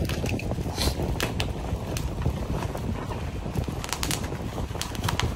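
Black plastic parcel wrapping rustling and crinkling as it is cut open with scissors, with a few short sharp crackles, over a steady low rumble of wind on the microphone.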